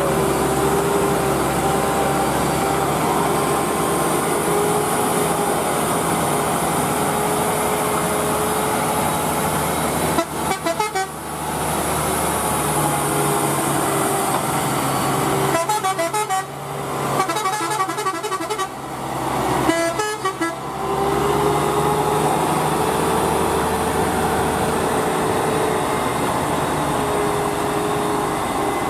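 Truck engines running on a steep climb, with a vehicle horn sounding over the traffic. About a third of the way in and again past the middle, the sound briefly drops out and flutters.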